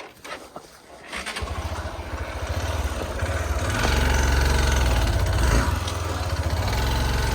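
Vehicle engine running under load on a steep off-road climb. It comes in about a second in and gets louder, holding steady from about halfway.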